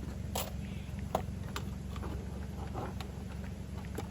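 Scattered clicks and taps of a hand tool and plastic trim being worked loose on a car's interior, about six in four seconds, over a steady low hum.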